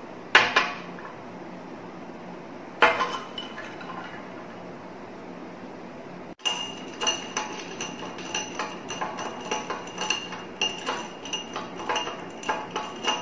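Two sharp clinks of a small glass against a tall drinking glass in the first three seconds. Then, from about six seconds in, a spoon stirring in the glass, tapping its sides in quick, ringing clinks, several a second.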